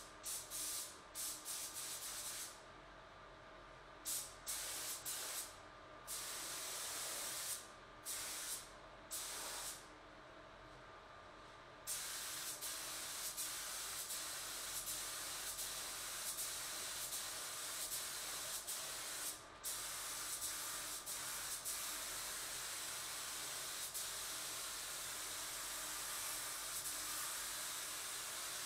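Gravity-feed paint spray gun laying on the second coat of primer: a hiss of air and atomised paint that starts and stops in short trigger pulls for about the first twelve seconds, then runs on almost without a break.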